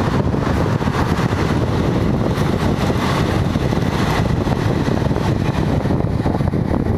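Passenger train rolling past below: a loud, steady rumble of wheels on the rails.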